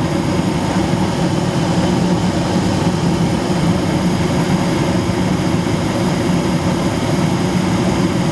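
Coleman high-efficiency gas furnace running: a steady fan hum with one constant tone, unchanging throughout.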